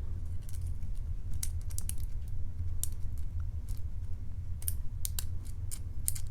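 Lock pick clicking irregularly against the pin stacks of a Matlock 2508 padlock as it is single-pin picked under tension, small metallic ticks a few times a second. A steady low hum runs underneath.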